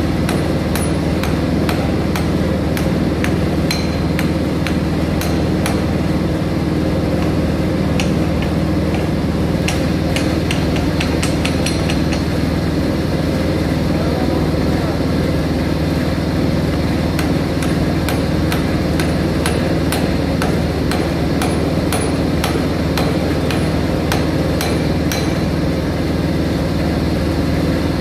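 Hammer tapping again and again on the metal of a rusted butterfly valve being taken apart, in irregular strikes with a quick run of taps about ten seconds in. A steady low machinery hum runs underneath.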